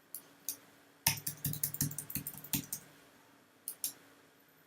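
Typing on a computer keyboard: two single keystrokes, then a quick run of keys for about two seconds, then two more keystrokes near the end.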